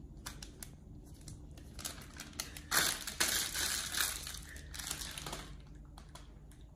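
Chocolate chips pattering into a plastic mixing bowl as the bag is tipped out. About three seconds in, the plastic chocolate-chip bag crinkles loudly for a couple of seconds as it is squeezed and shaken empty.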